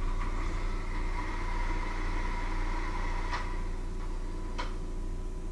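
Steady hum of a small electric motor, with two sharp clicks about three and four and a half seconds in.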